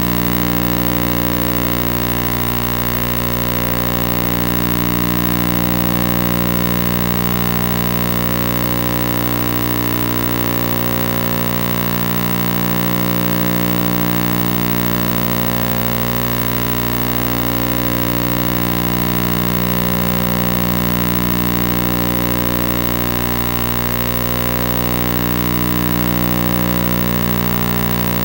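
A steady electronic drone of many held tones that swells and eases slowly, about every six seconds.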